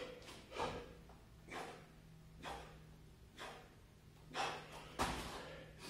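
A man's heavy breathing during burpee push-ups: short, hard exhales about once a second, with a soft thump about five seconds in.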